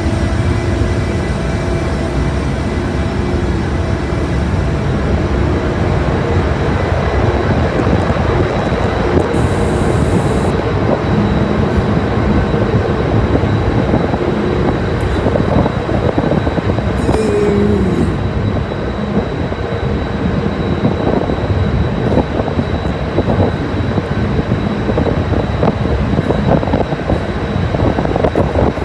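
Steady low rumble of a car ferry's engines and hull, with a few faint steady tones running through it.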